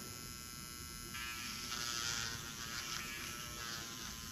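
Makartt Stephanee rechargeable nail drill running at 10,000 RPM with a steady whine. About a second in, the bit is pressed into plastic and grinds through it, and the motor keeps running under the pressure without stalling.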